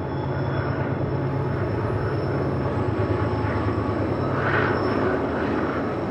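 Freight trains running: the steady rumble of intermodal flatcars rolling past on the rails, over the low drone of BNSF diesel locomotives. A brief higher hiss rises about four and a half seconds in.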